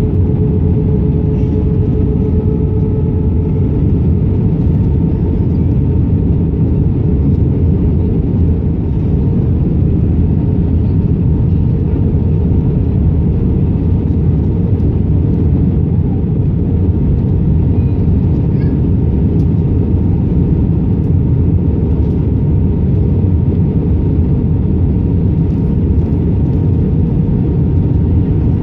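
Airbus A319 cabin noise from a window seat over the wing on descent: a steady low rumble of airflow and engines with faint steady hums. A higher hum fades out about two seconds in.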